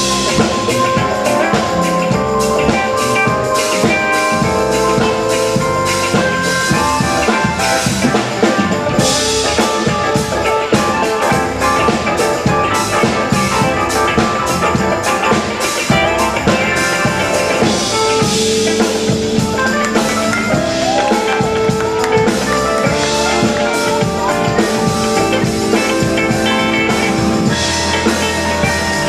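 Live band playing: drum kit, electric guitars, bass and keyboards, with a steady beat.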